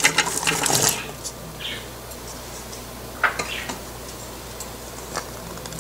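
Chopped onions pouring from a bowl into an aluminium pressure cooker onto meat: a quick rush of soft patters over about the first second, then a few scattered light taps.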